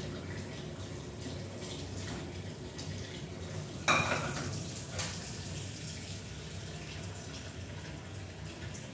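Dishes being washed by hand at a sink: water running and splashing, with a loud clank of a metal pot about four seconds in and a lighter knock a second later.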